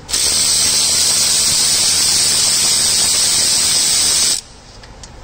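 Snap-on power ratchet running steadily for about four seconds on a long extension, spinning out an intake manifold bolt on a Ford 3.5 EcoBoost, with a hissing whir that starts and cuts off suddenly.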